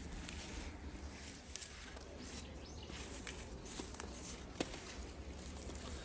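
Light clicks and rustles of freshly picked Nanking cherries rolling and shifting in a woven bamboo basket as it is tilted, a few sharp ticks standing out over a steady low rumble.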